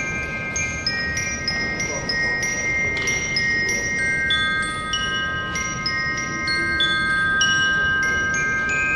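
Marching bell lyres (glockenspiels) playing a slow melody. Each struck note rings on and overlaps the next, with a new note about every half second.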